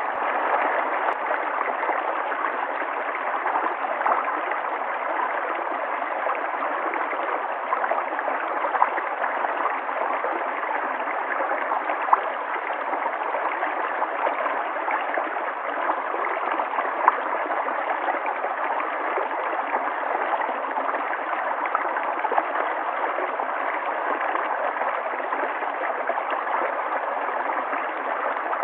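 River water flowing steadily, a continuous rushing and gurgling with small splashes here and there.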